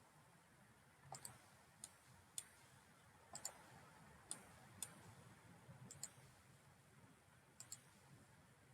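Computer mouse clicking: about ten sharp, separate clicks, some in quick pairs, against faint room tone.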